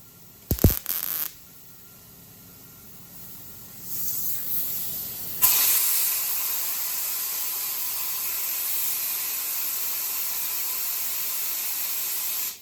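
A short sharp burst about half a second in, then compressed air hissing steadily onto the fresh weld on the steel hood to cool it, stopping abruptly near the end.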